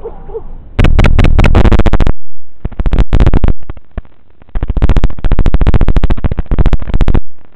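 Loud, clipped buzzing static from an analog FPV video receiver as the quadcopter's video link is lost. It comes in surges of one to three seconds, with quieter hiss in the gaps.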